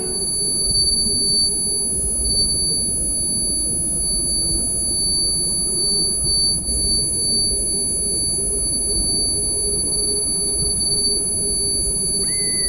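A sustained high-pitched beep, a steady ear-ringing tone, over a constant low rumbling noise. A second, lower tone joins near the end.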